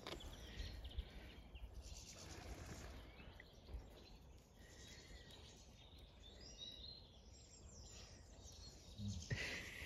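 Near silence: faint outdoor ambience with a few faint bird chirps, and a brief low sound near the end.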